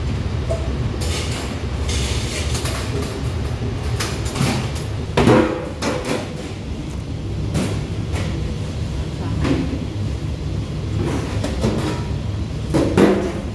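Clatter of stainless steel kitchenware: several sharp knocks and clanks, the loudest about five seconds in, as mayonnaise-dressed noodle salad is scooped and tipped into a steel hotel pan. Under them is a steady low rumble of kitchen machinery.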